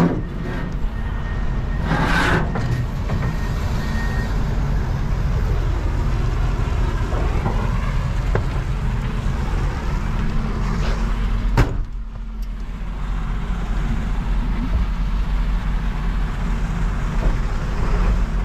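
A Ford 7.3-litre V8 diesel truck engine idling steadily. A short clatter about two seconds in and a single sharp bang of a truck door shutting about twelve seconds in, after which the engine sounds a little muffled.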